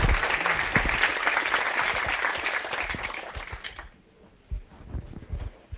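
Audience applauding, the clapping fading out after about three and a half seconds, followed by a few low thumps.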